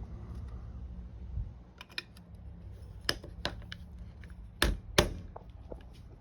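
Hard parts of a sailboat rope clutch clicking and clacking as it is put back together by hand: a scatter of sharp clicks, with two loud clacks close together about three-quarters of the way through, over a low steady hum.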